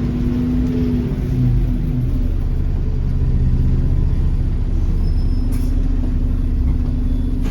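Alexander Dennis Enviro400 double-decker bus engine running while the bus is under way. Its note falls over the first couple of seconds, then settles into a steady low drone, with a steady hum joining about two thirds of the way through.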